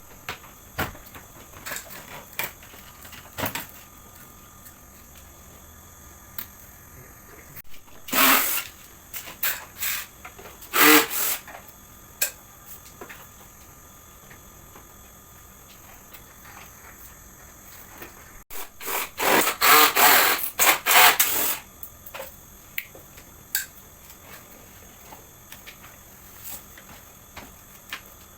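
Plastic parts of a portable air conditioner being handled and taken apart by hand: scattered clicks and knocks, with louder rasping bursts about eight and eleven seconds in and a longer one around twenty seconds.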